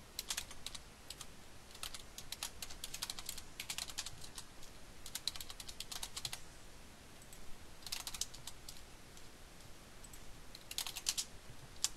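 Typing on a computer keyboard: quick runs of key clicks in several bursts, with pauses of a second or two between them.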